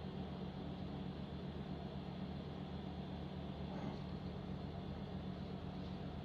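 A steady low hum with no speech, and a faint tick about four seconds in.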